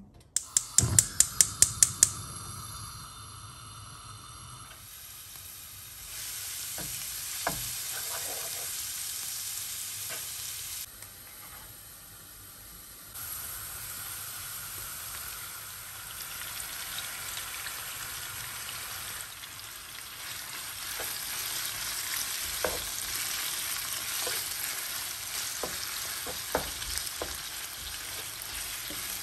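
Minced onion frying in olive oil in a non-stick pan, sizzling steadily; the sizzle gets louder about halfway through as raw chicken strips go in, and a wooden spatula stirs them with occasional knocks near the end. A quick run of sharp, evenly spaced clicks sounds in the first two seconds.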